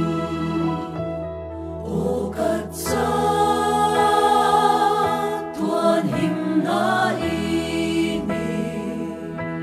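Mixed choir of men and women singing together in harmony, holding long chords that change every second or two.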